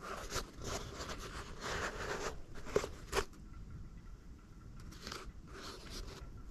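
Hands turning and gripping a rolled closed-cell foam pad tied with paracord: irregular rubbing and crunching scrapes of skin and cord on the foam, with two sharp clicks about three seconds in.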